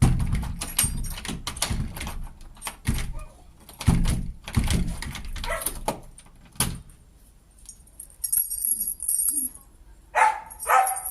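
A dog barking repeatedly, a run of short loud barks, then two shorter yips near the end. A high metallic jingle of keys starts shortly before the end.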